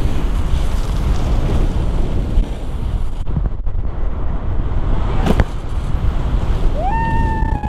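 Wind buffeting the microphone over the rasp of a snowboard carving across packed snow, the hiss dropping away for under a second midway as the board leaves the snow, then a sharp smack on the landing about five seconds in. Near the end a high call rises and holds.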